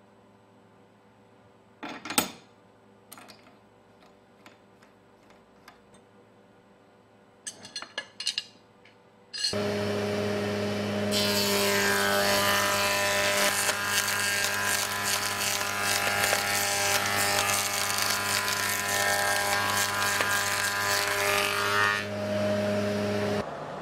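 A few metal clinks and knocks as tooling is fitted on a spindle moulder, then a little under halfway through the moulder's motor starts with a steady hum. Its angled cutter block then cuts a decorative profile along a wooden board for about ten seconds, a loud dense hiss over the hum, before the machine runs on free of the wood near the end.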